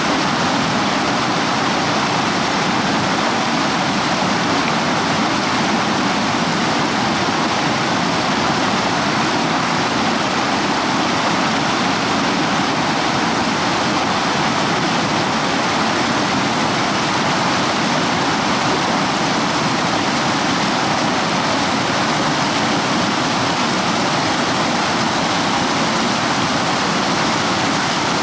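River rapids rushing and splashing over boulders close by: loud, steady white-water noise with no change throughout.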